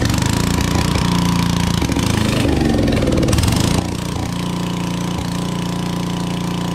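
Portable generator's 10-horsepower Briggs & Stratton engine running loud and steady, just started on fresh fuel after water was flushed out of its fuel system. About four seconds in it drops a little in level and settles into a smoother, even run.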